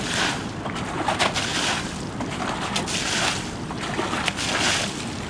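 Rushing river water with wind buffeting the microphone, a hissing swell coming about every second and a half.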